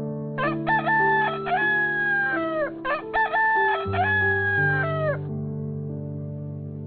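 Rooster crowing twice in quick succession, each crow a run of short notes into a long held note that falls away at the end, over soft piano music.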